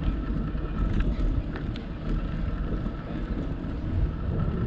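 Wind buffeting the microphone with a steady low rumble from a bicycle rolling along a paved trail, with a few faint light ticks.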